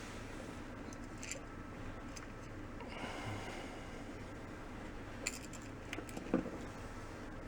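A few small, sharp clicks and taps of small parts and tools being handled, the loudest near the end, over a steady low hum.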